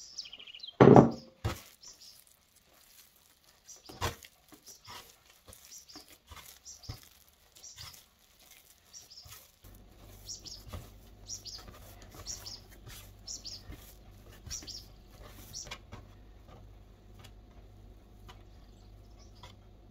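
Enriched pan dulce dough being kneaded by hand on a wooden board: a loud thud about a second in as the dough hits the board, then a run of soft slaps and sticky smacks as it is pressed, folded and peeled back.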